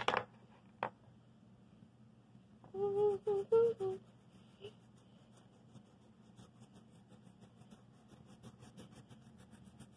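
A few short hummed notes about three seconds in. Then wax crayon scribbling back and forth on sketchbook paper, in rapid scratchy strokes about five a second.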